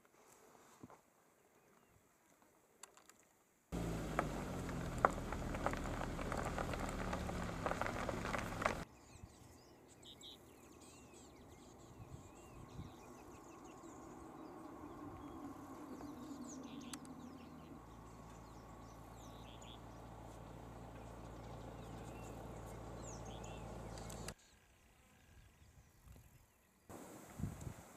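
Outdoor bush ambience with short bird calls chirping over a low steady hum. About four seconds in comes a stretch of around five seconds of louder, dense low rumbling noise that cuts off suddenly.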